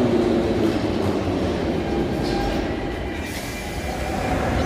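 Ezh3 metro train pulling into the station and braking to a stop at the platform: wheel rumble on the rails with some brake noise, easing off as the cars slow.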